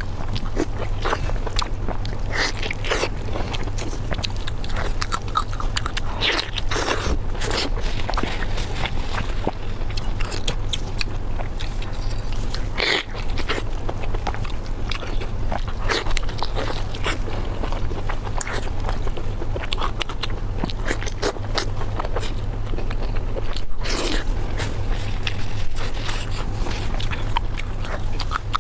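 Close-miked eating of spicy pork belly: irregular wet chewing, biting and crunching with small mouth clicks. A steady low hum runs underneath.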